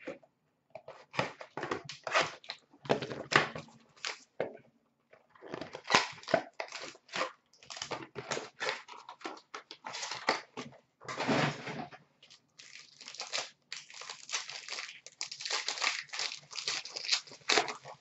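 Hockey card packs being torn open and their foil wrappers crinkled by hand: a run of short tearing and crinkling sounds with brief pauses, one longer rip near the middle.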